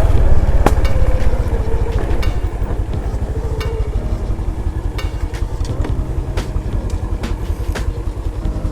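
Honda Wave RSX motorbike engine running as the bike is ridden, a steady low pulsing with scattered light ticks, getting a little quieter after about two seconds.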